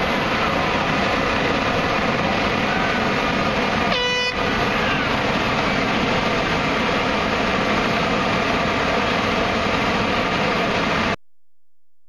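Steady loud outdoor noise with a single short horn blast about four seconds in. The sound cuts off suddenly near the end.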